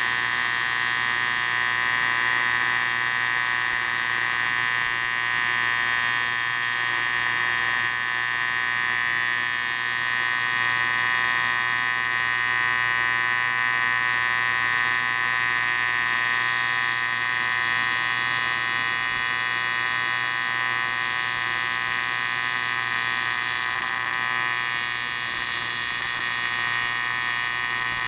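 AC TIG welding arc buzzing steadily on an aluminium Harley-Davidson Twin Cam 110 cylinder head, filling a damaged exhaust-port stud hole.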